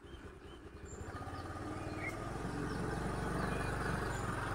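A vehicle engine running with a low, pulsing note that grows louder and steadier over the first couple of seconds as the vehicle gets under way. Birds chirp briefly now and then over it.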